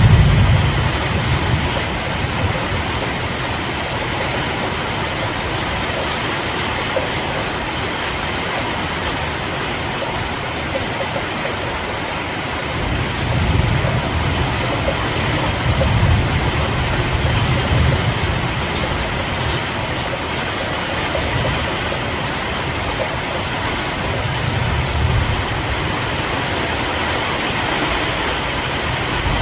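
Steady rain falling, a continuous even hiss. A low rumble swells and fades a few times underneath it, at the start, around the middle and near the end.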